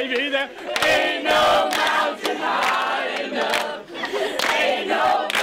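A group of teenagers cheering, whooping and laughing all at once, with scattered clapping.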